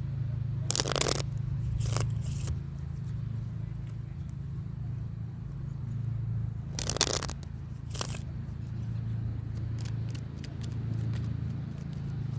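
Tarot cards being shuffled by hand: several short scraping riffles, the loudest about a second in and about seven seconds in, with lighter ticks between, over a steady low hum.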